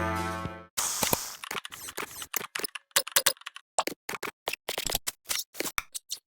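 Music fading out, then a rapid, irregular run of sharp clicks for about five seconds that stops abruptly.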